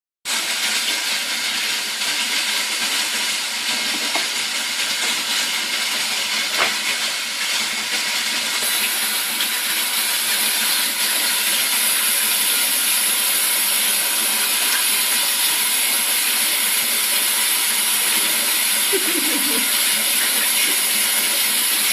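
Running water hissing steadily during a cat's bath; about nine seconds in the hiss turns brighter and stronger.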